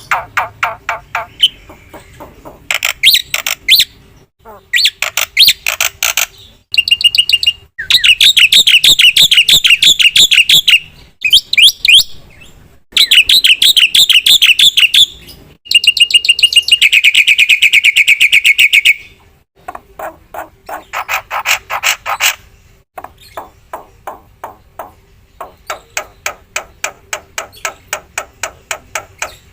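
Black-winged myna (jalak putih) singing loudly: phrases of fast rattling trills and chattering notes broken by short pauses, including a long steady trill about halfway through. Toward the end the song drops to softer, evenly repeated ticking notes.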